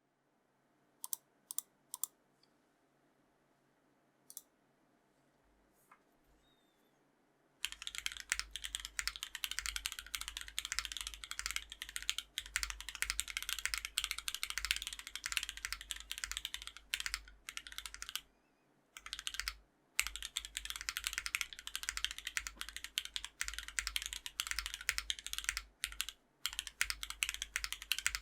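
Custom gasket-mounted Parallel Limited Portal mechanical keyboard with GoPolar Vermillion Bird linear switches, FR4 plate and PBT keycaps being typed on. A few single keystrokes come first, then fast continuous typing from about eight seconds in, with a brief pause about two-thirds of the way through. The switches give a sharp clack.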